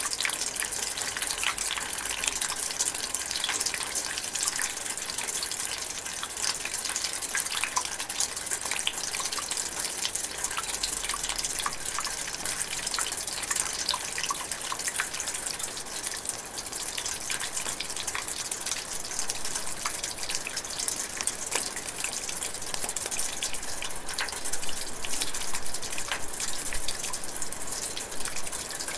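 Light rain drizzling: a steady, dense patter of many small drops.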